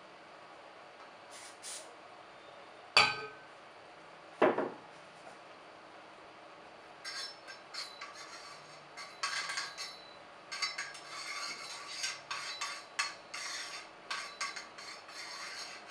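Cleaning rod worked back and forth inside a Remington 870 shotgun's magazine tube, giving irregular metallic scraping and clinking from about seven seconds in. Two separate sharp knocks come a few seconds earlier.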